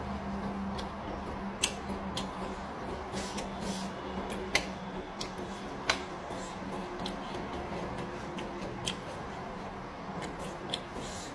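Eating raw leafy greens and vegetables: irregular crisp crunches and snaps from chewing and breaking the stems, about a dozen sharp clicks spread through, over a steady low hum.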